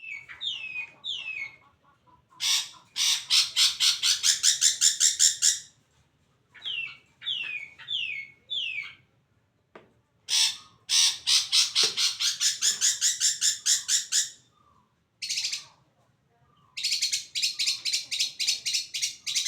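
A caged songbird calling loudly: short runs of three or four falling whistled notes alternate with long, harsh chattering rattles of about five pulses a second, several seconds each.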